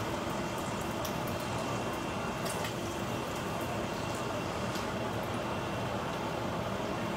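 Dried fish frying in shallow hot oil in a pan: a steady sizzle with a few sharp pops and crackles. The fish is fried through and crisp.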